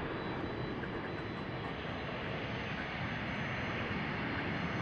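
Business jet's twin rear-mounted turbofan engines during a high-speed runway roll: a steady rush of jet noise with a thin high whine over it, growing a little louder toward the end.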